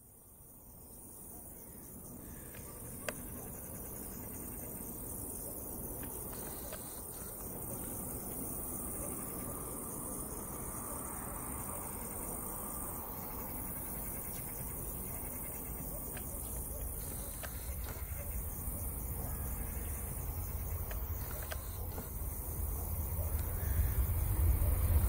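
An Airbus A319-132 airliner's IAE V2500 jet engines on landing approach: a low rumble that grows slowly louder and swells near the end as the plane reaches the runway. Steady high-pitched insect chirping runs underneath.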